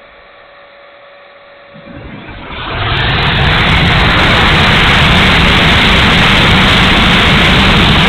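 Electric ducted fan of an E-flite F-16 70 mm model jet, recorded on board in flight. For the first two seconds it is quiet, with a faint steady whine. Then it spools up, and from about three seconds in a loud, steady rush of fan and airflow takes over.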